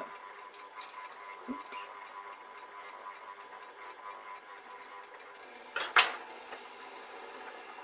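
O gauge model diesel shunter running slowly with its wagons, a faint steady whirr, with one sharp clack about six seconds in.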